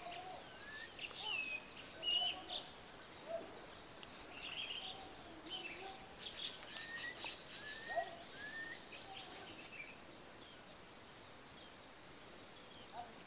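Quiet countryside ambience: small birds calling with scattered short chirps and whistles, some rising and some falling, over a steady high drone of insects.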